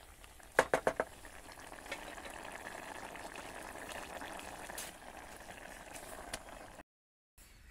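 Thick pav bhaji vegetable mash bubbling and sizzling in a steel pot on a portable gas stove. About half a second in, a wooden spatula knocks sharply against the pot four or five times. The sound breaks off briefly near the end.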